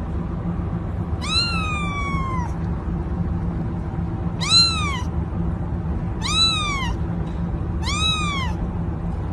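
A cat meowing four times: a longer first meow that rises and then slides down, then three shorter meows that each rise and fall, over a steady low hum.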